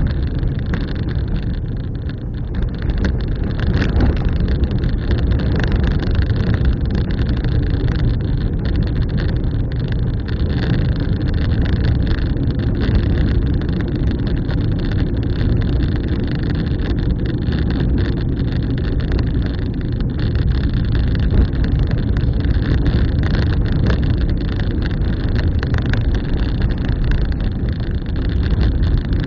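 Car driving steadily, with engine and road noise heard from inside the vehicle as a continuous low rumble.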